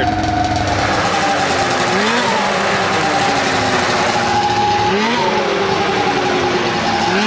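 Snowmobile engine idling while it warms up, with three quick throttle blips: about two seconds in, about five seconds in, and again near the end.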